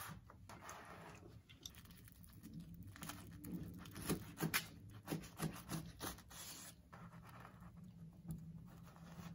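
Toasted sandwich bread crackling and crunching as a sauced buffalo chicken sandwich is pressed down and split in half, with a run of crisp crackles in the middle.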